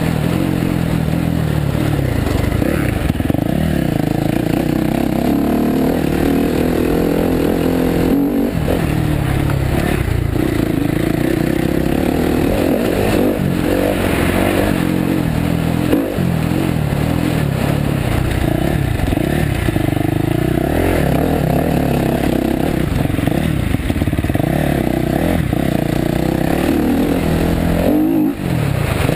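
Dirt bike engine ridden hard around a dirt track, revving up and easing off over and over as the pitch climbs and falls through the gears and corners, with a few brief drops where the throttle is shut. The engine is close and loud.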